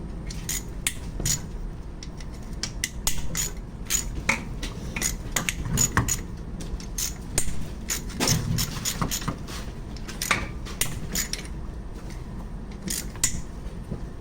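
Irregular metallic clicks and clinks of a ratchet and socket working loose the 8 mm bolts on an engine's water pump housing.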